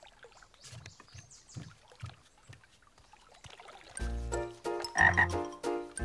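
Cartoon frog croaking: faint low croaks at first, then louder, deeper croaks repeating from about four seconds in.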